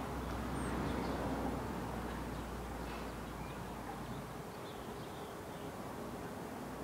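Outdoor park ambience: small birds chirping faintly over a steady low rumble, which falls away about two-thirds of the way through.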